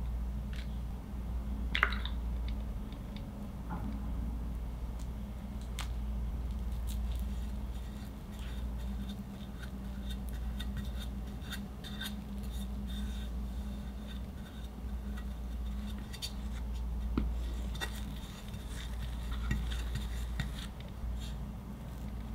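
Metal offset spatula spreading and scraping Swiss meringue buttercream around a layer cake, with soft scrapes and scattered light clicks of metal on the cake and board, one sharper click about two seconds in. A low steady hum runs underneath.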